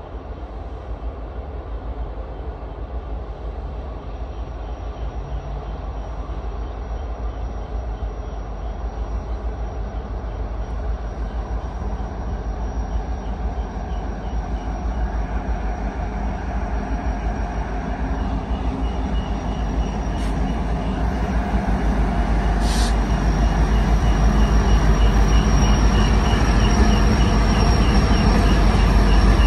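Norfolk Southern diesel locomotives leading a freight train, approaching and drawing alongside, their engines and rumble growing steadily louder.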